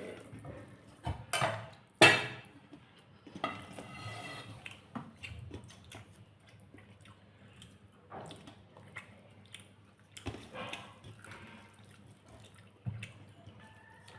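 Eating sounds at a plate of rice and curry: a few sharp clinks and knocks of dishware, the loudest about two seconds in, and a short wet, splashy stretch a little later.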